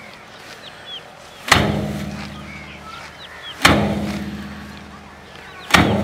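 Bundles of rice stalks beaten down onto a metal oil drum to thresh the grain by hand: three strikes about two seconds apart, the hollow drum ringing and fading after each. Birds chirp faintly between the strikes.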